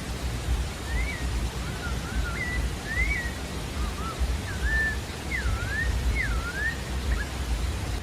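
Pale-breasted thrush (sabiá-da-várzea) singing a string of short clear whistled notes that sweep up and down, over a steady low rumble of background noise.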